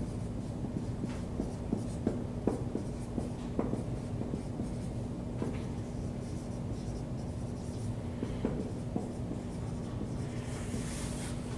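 Dry-erase marker writing on a whiteboard: scattered faint taps and scratches of the tip against the board, over a steady low hum.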